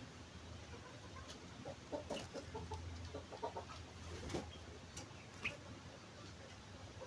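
Faint, sparse bird calls: short clucking notes clustered about two to three seconds in, and a few brief high chirps, one about five and a half seconds in, over a low steady hum.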